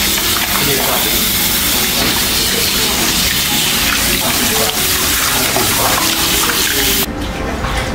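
Water running from a tap into a foot basin and splashing over feet as they are washed by hand. The running water stops suddenly about a second before the end.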